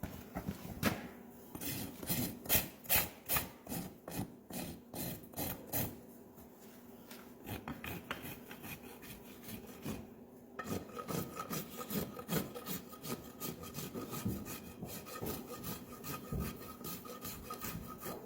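Farrier's rasp filing a horse's hoof in repeated scraping strokes, about two a second at first. After about ten seconds the strokes come quicker and a faint steady tone appears underneath.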